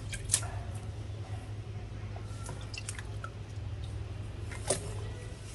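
Water sloshing and dripping as green onions are rinsed by hand in a plastic basin, with two sharper splashes, one just after the start and one near the end.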